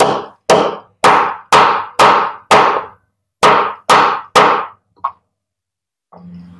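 Gentle hammer taps on the metal blade shaft of a Maspion blender cup, driving out its worn, loose bushing. About two sharp, briefly ringing strikes a second: six, a short pause, three more, then one faint tap.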